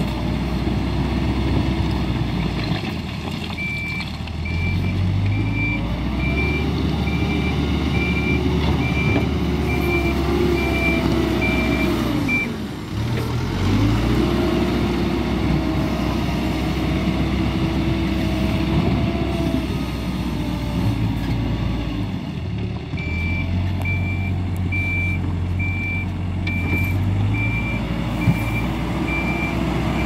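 Hidromek 102B Alpha A5 backhoe loader's diesel engine running under load, its pitch rising and falling as it works, with a brief drop near the middle. Its reversing alarm beeps steadily for about nine seconds starting a few seconds in, and again over the last several seconds.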